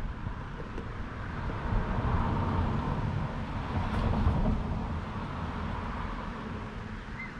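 A car passing on the street, its tyre and engine noise rising about two seconds in and fading after about four and a half seconds.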